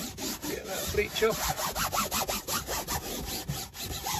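A wet cloth scrubbed quickly back and forth over a fly screen mesh backed by cardboard, rinsing bleach off with water: an even rasping rhythm of several strokes a second.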